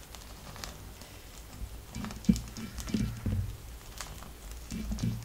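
Papadum crackling with scattered sharp ticks as it blisters and puffs over a gas flame in metal tongs, with a few dull thumps.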